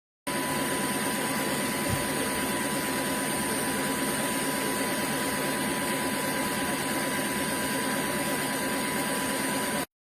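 Dreame H12 wet-dry vacuum's motor running steadily: an even rushing hiss under a constant high whine. It starts and cuts off abruptly.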